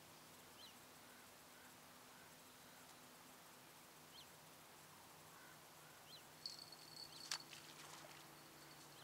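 Quiet lakeshore with short, high bird chirps every couple of seconds. Near the end comes a burst of small clicks with one sharp tick, the loudest sound, over a thin high steady tone, as a small fish is brought in at the water's edge.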